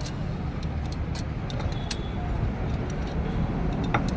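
Scattered light clicks and taps of hand tools on metal over a steady low rumble.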